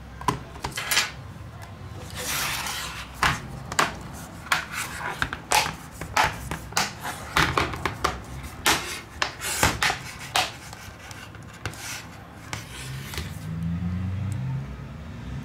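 Repeated small sharp clicks and taps, with a rubbing scrape about two seconds in: hand tools and small parts being handled while a Huawei S10 phone is worked on.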